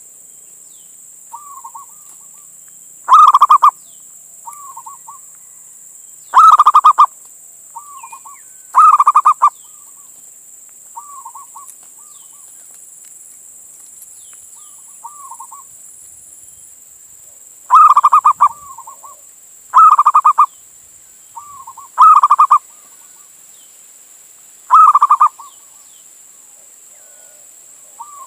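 Male zebra dove (perkutut) cooing: seven loud trilled coos spaced a few seconds apart, with softer short coo notes in between.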